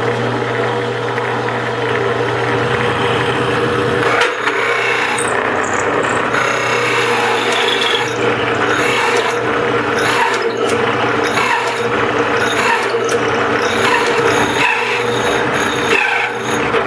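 Drill press running fast with a 2-1/8 inch hole saw boring through a wooden board: a steady motor hum under a rough cutting noise that swells and eases again and again as the saw is plunged in and pulled out to clear the chips.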